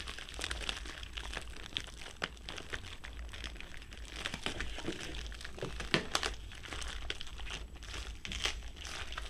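Plastic and cardboard packaging crinkling and rustling as hands work at a taped-up box, with irregular small clicks and a sharper snap about six seconds in.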